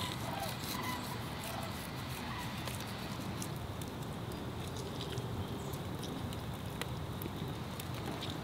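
Whole dried oregano being crumbled by hand over the fish, faint scattered crackles and rustling over a steady low background hum.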